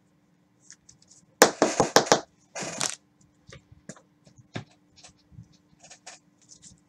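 Trading cards and plastic card holders being handled on a tabletop. A loud scraping rustle with sharp clicks comes about a second and a half in, then a shorter one, followed by a run of light clicks and taps.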